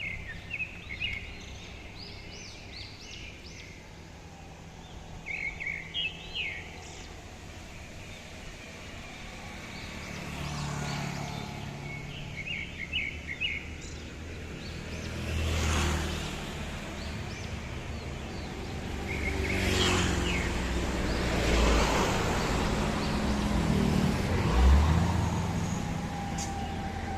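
Birds giving short bursts of quick, high chirps every few seconds over steady road traffic. Several vehicles pass in the second half and are the loudest sound.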